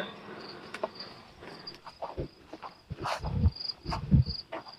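Insects chirping, short high chirps repeating irregularly, with a few low thuds about two, three and four seconds in.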